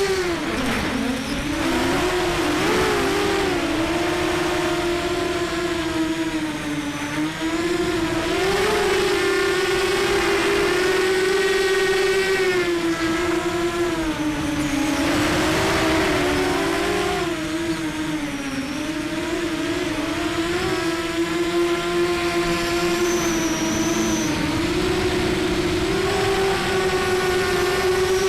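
Racing quadcopter's brushless motors whining in flight, the pitch rising and falling every few seconds with the throttle. One motor on this quad felt rough and is suspected of a bad bearing.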